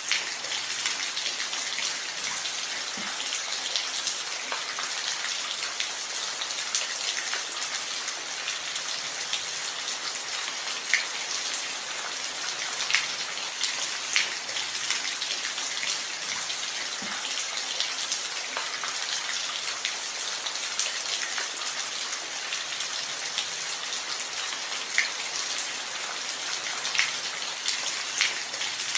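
Steady rainfall: an even hiss of rain with scattered louder drops standing out now and then.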